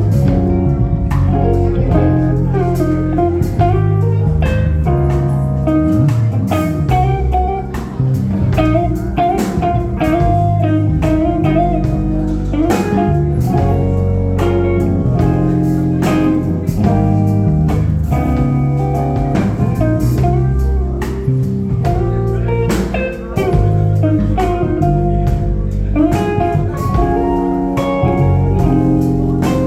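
Instrumental music in a blues style: a guitar playing a melodic lead line over a bass line, with regular percussive strokes.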